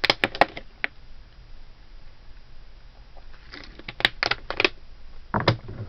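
Scattered light clicks and taps of small objects being handled: a cluster at the start, a quiet stretch, then another cluster about four seconds in and a couple more near the end.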